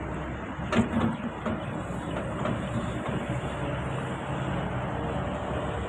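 Hitachi ZX excavator's diesel engine running steadily while it digs a trench, with a single sharp knock a little under a second in.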